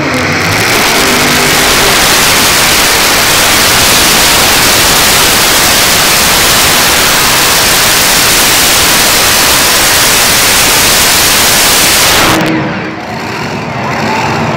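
Three-engine modified pulling tractor running under full load as it drags the weight sled, a very loud steady roar that cuts off suddenly about two seconds before the end as the run finishes.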